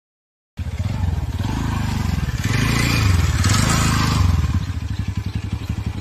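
Small motorbike engine running at riding speed, a steady low pulsing thrum that cuts in abruptly about half a second in after a moment of silence and turns more uneven near the end.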